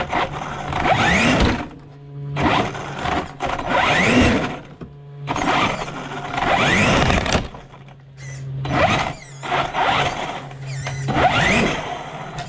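Traxxas Sledge RC monster truck's brushless electric motor, running on a 6S battery, revving in repeated short bursts of throttle about every two seconds. Each burst carries a rising whine, and a low hum is steady between them.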